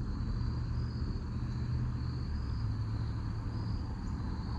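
A steady low rumble, with insects trilling steadily at a high pitch above it.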